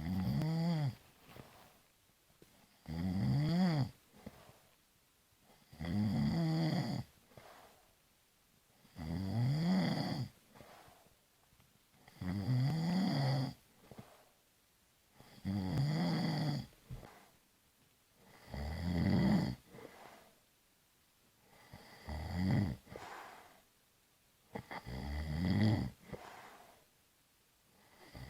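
A person snoring, with a loud snore about every three seconds. Each snore lasts about a second and its pitch rises and falls, with a softer breath between snores.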